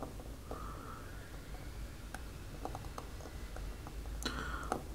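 Faint, scattered light clicks of a small steel watchmaking tool touching the parts of a watch movement, over low room hum, with a brief denser run of clicks near the end.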